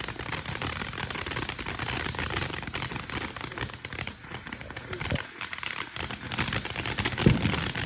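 A consumer firework crackling steadily, with a dull pop near the end.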